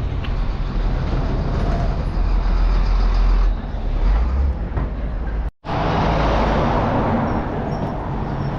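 Steady road and wind noise from riding an electric vehicle along a road, with a heavy low rumble of wind on the microphone and traffic. The sound cuts out for an instant about five and a half seconds in and resumes somewhat brighter.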